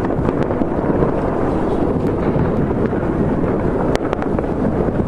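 Fireworks going off across a city: a continuous rolling rumble of many distant bangs, with sharper cracks now and then, a few close together about four seconds in.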